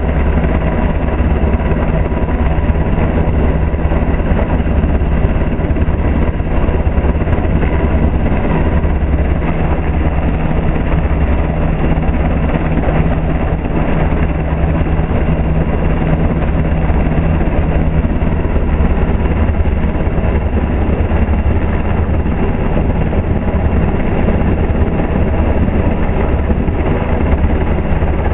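US Coast Guard Jayhawk (H-60) helicopter hovering low overhead: a steady, loud beat of the main rotor over the drone of its turbine engines.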